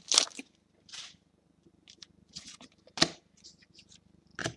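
Football trading cards being sorted in the hands: a few short brushes and flicks of card sliding over card, with a sharper snap about three seconds in and quiet gaps between.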